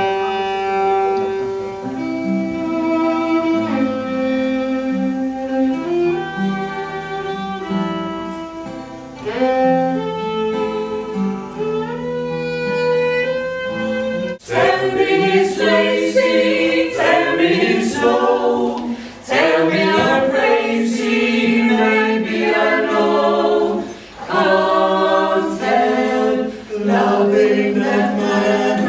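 A fiddle and an acoustic guitar playing a tune together; about halfway through it cuts abruptly to a group of people singing a song together.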